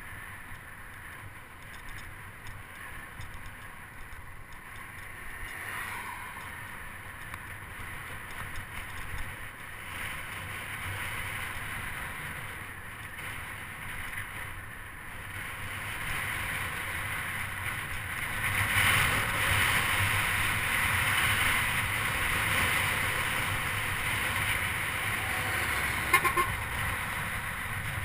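Wind rushing over the microphone of a bicycle-mounted camera, with road rumble from the bike rolling on rough asphalt. It grows louder a little past halfway, and a short sharp click comes near the end.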